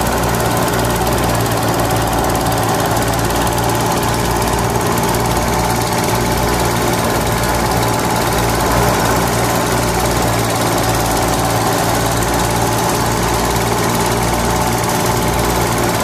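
Small motor of a miniature model engine running at a steady hum, turning a belt-driven toy paddy-threshing drum.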